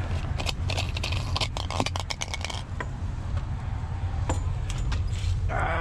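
Hands working on a piece of curbside scrap: a quick run of clicks, knocks and light rattles for the first couple of seconds, then a few scattered ticks and a short scrape near the end, over a steady low rumble.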